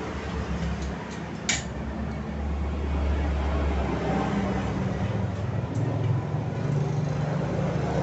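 A single sharp metal click about one and a half seconds in, as a washer and coil spring are fitted onto a rod of a welded steel rice-transplanter frame, over a steady low mechanical rumble.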